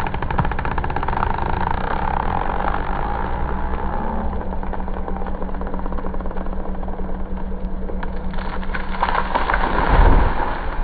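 Excavator's diesel engine running steadily, with a sudden louder low rumble about ten seconds in.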